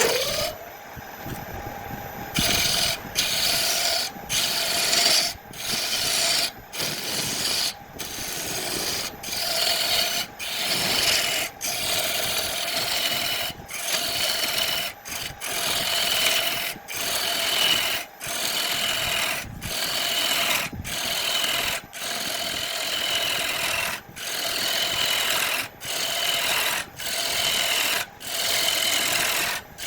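A hand tool rubbing and scraping on wood in steady back-and-forth strokes, about one every 1.2 seconds, beginning a couple of seconds in.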